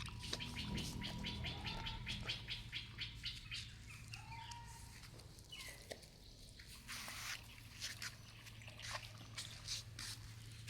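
Animals eating food: rapid wet chewing at about five or six bites a second for the first few seconds, then slower, scattered bites.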